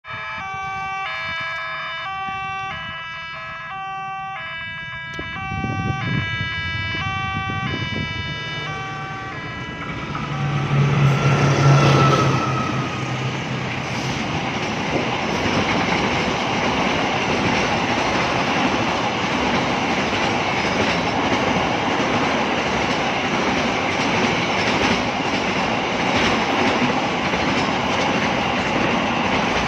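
Railway level-crossing warning siren at Petarukan station, hoarse-sounding, alternating between two pitches about twice a second. After about ten seconds a train passes and its steady rolling wheel noise covers the siren. A brief low tone about eleven seconds in is the loudest moment.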